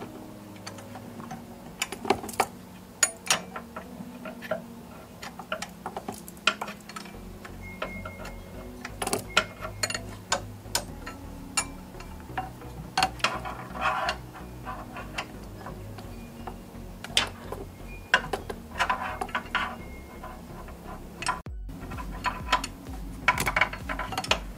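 A 10 mm offset box wrench clinking on the water pump pulley bolts of a Hyundai Elantra engine as they are worked loose: irregular sharp metal clicks, with a few short stretches of quick rattling.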